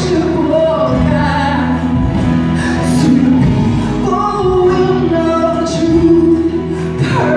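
Live gospel worship song: a group of male and female singers singing together over instrumental accompaniment.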